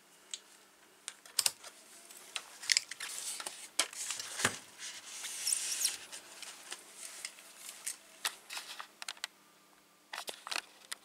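Scattered light clicks and rustling of hands handling multimeter test leads and clips, thickest around the middle and again near the end.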